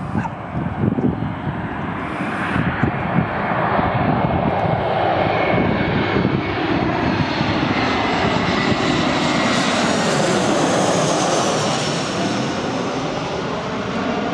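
Airbus A321-214 airliner's CFM56 turbofan engines on landing approach, the jet noise swelling as the plane comes in low overhead. About ten seconds in, at its closest, the sound takes on a sweeping rise and fall in pitch, then eases as the aircraft moves away.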